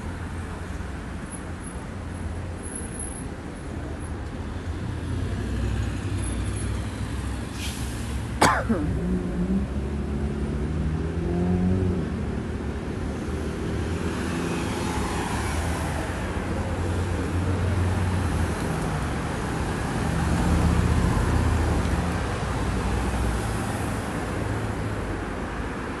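City street traffic: cars passing and pulling away through an intersection, over a steady low rumble. About eight seconds in, a brief sharp sound drops quickly in pitch, followed by a car engine speeding up.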